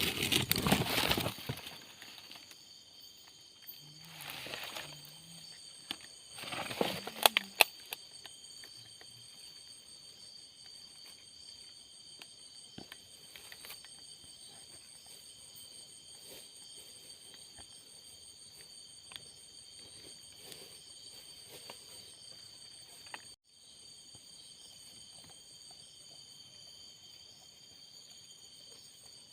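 Night chorus of crickets, several steady high-pitched trills layered together. Three loud bursts of noise break in: at the start, about four seconds in and about seven seconds in. There is a brief break about 23 seconds in.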